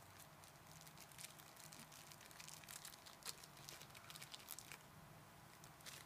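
Faint crinkling of a small plastic zip-lock bag and light clicks of tiny screws being picked out of it, in quick irregular bursts that thin out about five seconds in.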